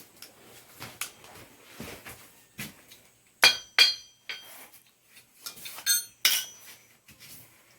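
Metal tools knocking and clinking against steel: a few soft knocks, then two loud ringing metal strikes about three and a half seconds in, and a quick rattle of small clinks with another strike near six seconds.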